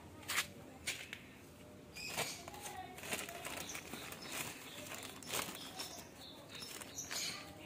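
A series of sharp crunches and rustles, about seven distinct crunches spaced irregularly, with softer rustling between them.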